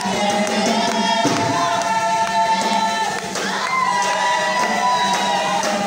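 A group of voices singing together in long held notes that step from pitch to pitch, with crowd noise underneath.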